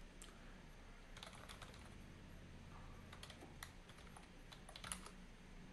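Faint keystrokes on a computer keyboard, in a few short runs of typing.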